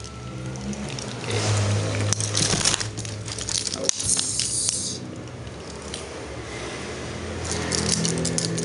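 Leather bag being handled and emptied: rustling, scraping and crinkling as the bag is opened and its contents are shifted and taken out, in several noisy stretches with small clicks and knocks.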